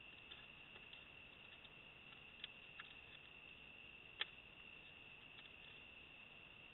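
Near silence: faint night ambience with a steady high-pitched trill and a few soft clicks, the sharpest about four seconds in.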